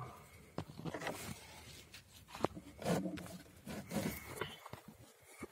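Scattered scrapes, rubs and small knocks of someone crawling and shifting in the cramped space under a wooden floor, with clothing rustling and the handheld phone brushing against things.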